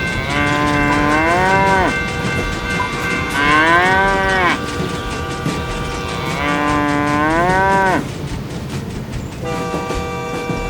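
Three long, moo-like calls about three seconds apart, each swooping up in pitch and then falling away, over a steady rhythmic clatter. A steady held horn-like tone starts near the end.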